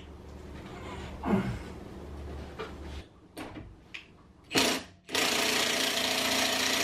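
A few scattered clinks and knocks of tools at the wheel's lug, then about five seconds in an impact wrench starts hammering steadily on a locking lug nut.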